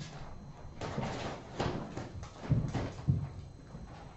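Kittens playing: a run of irregular soft thumps and knocks, about five in a few seconds, the loudest near the middle.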